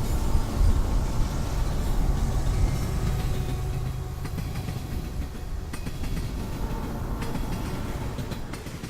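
A low, steady rumble of passing vehicle traffic, easing off a little about halfway through.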